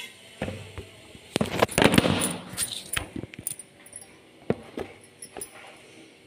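Handling clatter: a dense run of clicks, rattles and knocks for about three seconds, loudest about halfway through that run, then a few single knocks, as a handheld phone is picked up and repositioned against kitchen surfaces and steel utensils.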